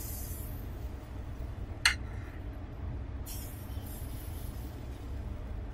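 A single sharp clink, about two seconds in, of a metal spoon against the unniyappam pan as batter is spooned into its cavities, with a couple of brief soft scrapes, over a steady low hum.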